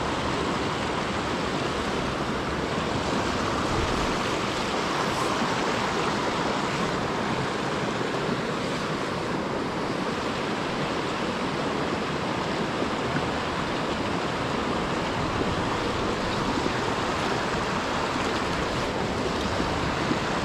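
Small creek running over rocks in a shallow riffle: a steady rush of flowing water.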